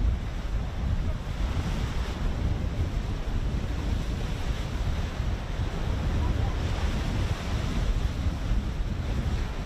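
Wind buffeting the microphone over the steady wash of the open sea, a low rumbling noise that swells and eases slightly without any distinct events.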